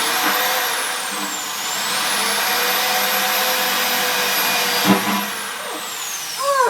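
Electric drill running under load while drilling a hole. Its high motor whine winds up at the start, dips briefly, holds steady, then winds down near the end.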